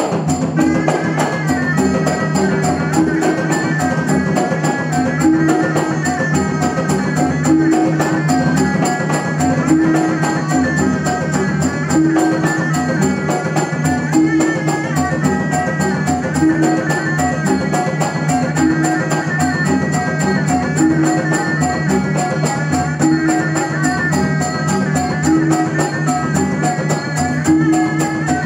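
Wayang kulit ensemble playing an instrumental interlude: a fast, steady percussion beat under a high wavering melody, with a low note that repeats about every two seconds.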